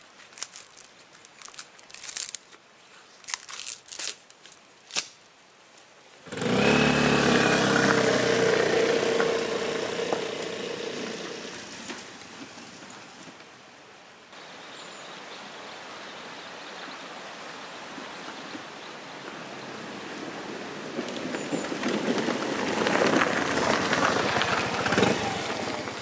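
Papery birch bark torn from a trunk by gloved hands, crackling and snapping in short bursts. About six seconds in, a sudden loud rushing sound with a low hum cuts in and fades over several seconds. After that a steady rushing noise slowly grows louder.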